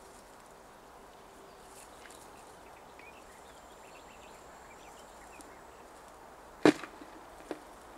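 Faint outdoor background, broken about two-thirds of the way in by one sharp clack and then a smaller one, as the wire hoops of a collapsible mesh fish trap knock together while it is being folded.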